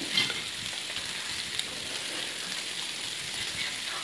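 Meat, prawns and dumplings sizzling steadily on a tabletop grill pan, with two light clicks from chopsticks against the pan, one near the start and one about a second and a half in.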